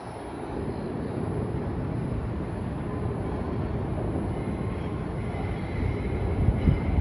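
Steady rumble of city traffic heard from high above the streets, with wind gusting on the microphone toward the end. A faint high squeal comes in about halfway.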